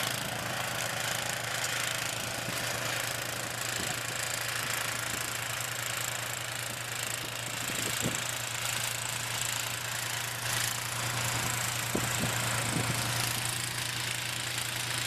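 A steady low engine hum under a constant hiss, with a couple of faint knocks about 8 and 12 seconds in.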